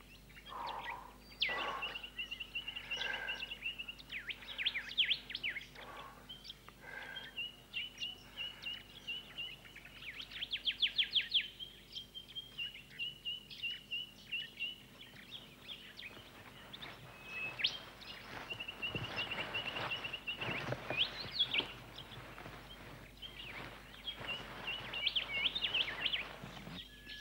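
Birds calling: a fast trill repeated on one high note, with bursts of quick chirps. About two-thirds of the way through, a rushing hiss comes in for several seconds.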